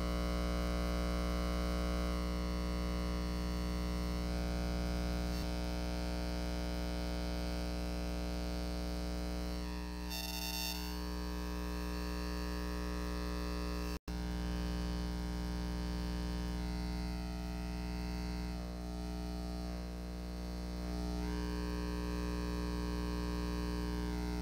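A steady, distorted electronic drone over a deep hum, with its upper tones shifting slowly. It cuts out for an instant about fourteen seconds in.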